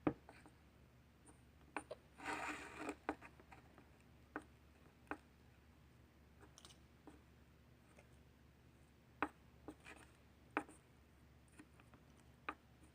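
Pencil stirring slime in a bowl as the contact solution is worked into the glue: faint scraping with scattered light taps against the bowl, and a short louder scrape about two seconds in.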